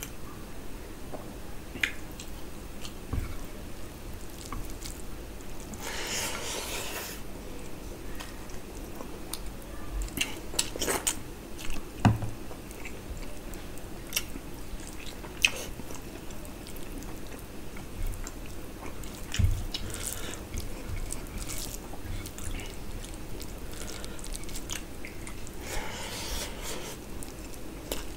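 Close-up eating sounds of mutton curry and rice eaten by hand: wet chewing and lip smacks, with the squelch of rice being mixed into the curry on the plate. Short clicks run throughout, with a few soft thumps and two longer hissing stretches.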